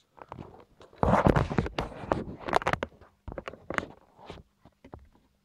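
Handling noise: rustling and scraping, loudest in the first half, then a string of sharp clicks as the camera is moved and set down and hard plastic LEGO parts knock on the table.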